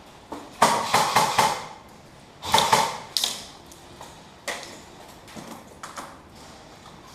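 Airsoft electric guns (AEGs) firing: two quick clusters of sharp shots, then a few scattered single shots.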